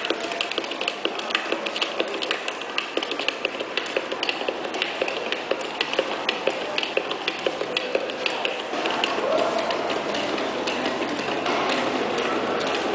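Hand stamps striking documents on a desk in fast, irregular succession, several sharp taps a second, played back through screen speakers. After about eight seconds the taps thicken into a denser, steadier clatter as several stamping soundtracks overlap.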